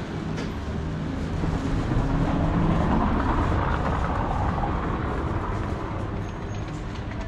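A motor vehicle passing along the street, its engine and tyre noise rising to a peak a few seconds in and then fading away, over steady traffic noise.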